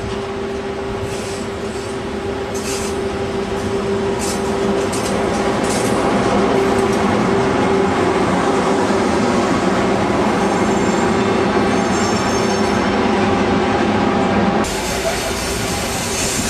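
Flåm Railway train running along the track, a steady rolling rumble that grows louder over the first few seconds, with brief high wheel squeal partway through. Near the end the sound changes abruptly.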